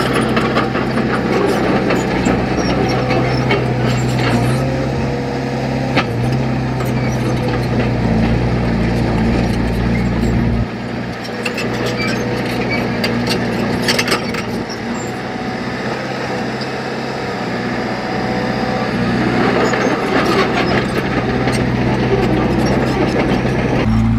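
Heavy earthmoving machine's engine running steadily, its note shifting about ten seconds in, with a few sharp knocks of metal.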